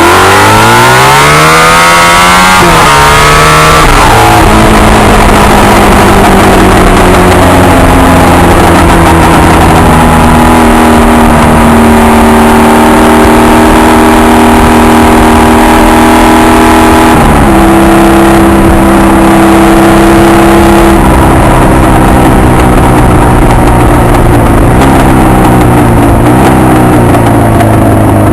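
Honda VF750 motorcycle's V4 engine under way. It revs up hard at the start, drops in pitch at a gear change about four seconds in, then holds a steady cruising note. The pitch steps again around two-thirds of the way through and eases and picks up near the end.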